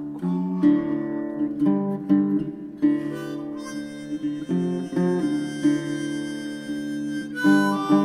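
Background music: a harmonica melody over strummed and plucked acoustic guitar.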